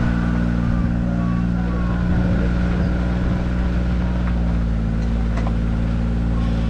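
A vehicle engine running steadily, a loud, even low drone that does not rise or fall.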